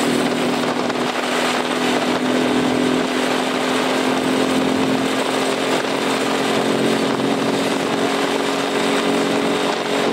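A motocarguero cargo motorcycle's 300cc engine running steadily under way in fifth gear at about 5,000 rpm, holding a nearly even pitch.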